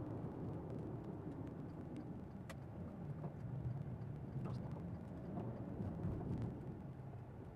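Low, steady road and engine rumble inside a car's cabin while driving, easing off slightly near the end.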